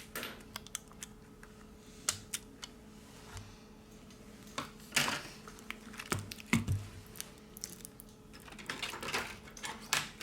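Small clicks and taps of repair tools and phone parts being handled while a smartphone's middle frame is pried loose, with a few short scraping sounds partway through and near the end. A faint steady hum runs underneath.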